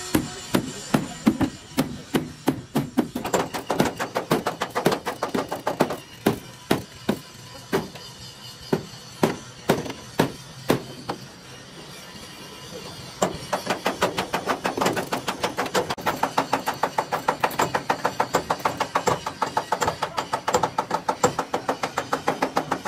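Hammer blows: irregular strikes at first, then after a short pause near the middle, a fast steady run of about five blows a second.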